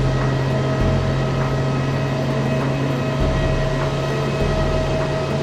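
Airbus A320neo jet airliner running steadily: a constant low hum with a steady whine above it, and a deep rumble that comes and goes.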